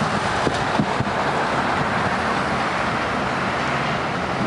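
Steady rushing noise of highway traffic mixed with wind on the microphone.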